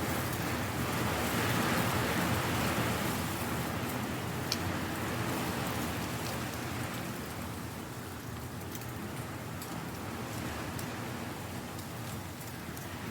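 Strong wind blowing dry leaves: a steady rustling hiss that swells over the first few seconds and eases off after about six seconds, with a few faint crisp ticks.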